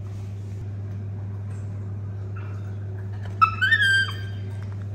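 Baby macaque giving one short high-pitched call about three and a half seconds in, rising in pitch and then holding, over a steady low hum.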